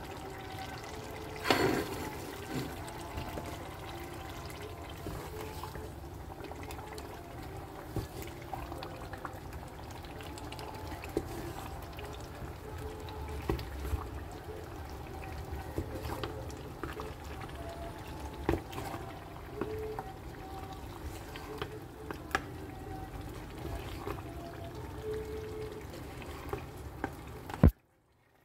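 Thick tomato stew simmering in a pot, bubbling and popping steadily, with a few sharper knocks, the loudest about a second and a half in and just before the sound cuts off near the end.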